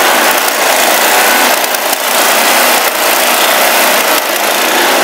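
Gas-engine two-stage walk-behind snowblower running steadily while it is pushed along a snowy driveway.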